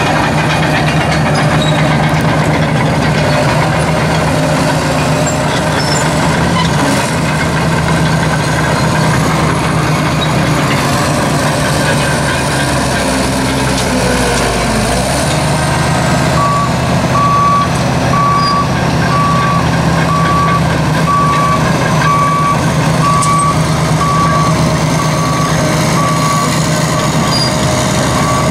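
John Deere 750 crawler dozer's diesel engine running steadily as the machine drives and works, deepening for a few seconds around the middle. About halfway through, a back-up alarm starts beeping, a bit more than once a second.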